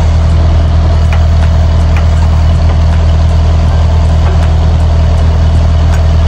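John Deere 50G compact excavator's diesel engine idling steadily, a loud, even low hum.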